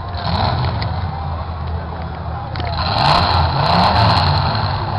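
Demolition derby car engines running and revving as the cars shove against each other, the revs rising a little past halfway. Crowd noise swells over it about halfway through.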